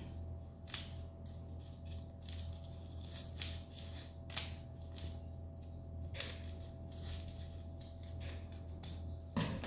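Large scissors cutting through folded black paper: a dozen or so irregular snips, roughly one or two a second. A steady low hum runs underneath.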